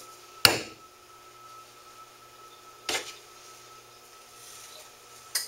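Hammer striking nails into a wooden stretching board through a beaver hide: three sharp knocks about two and a half seconds apart, the first the loudest.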